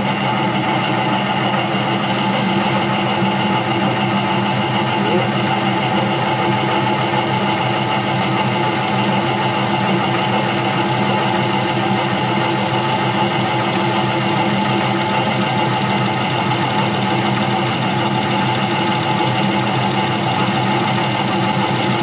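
Small benchtop metal lathe running at steady speed, its motor and gearing giving an even mechanical hum with a stack of steady tones, while the turning tool cuts a white plastic roller.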